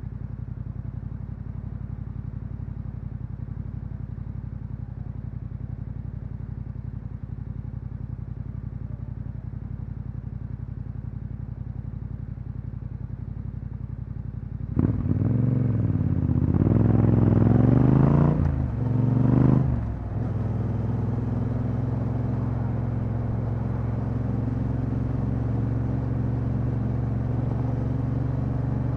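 Yamaha Ténéré 700's parallel-twin engine through an Akrapovic exhaust, idling steadily for about fifteen seconds, then pulling away: the revs rise and drop twice as it shifts up, and it settles into a steady cruise.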